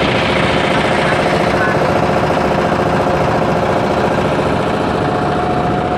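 Boat engine running steadily with a fast, even knocking pulse.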